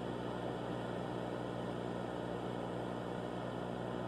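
Steady electronic hum under a hiss of static.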